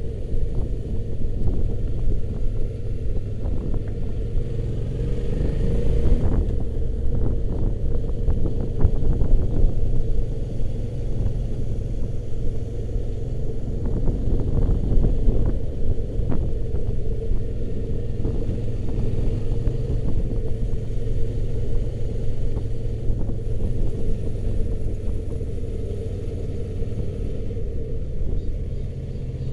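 Motorcycle engine running at a steady pace with a continuous low rumble and a steady hum. Scattered light clicks and knocks come in about six to ten seconds in and again around fifteen seconds.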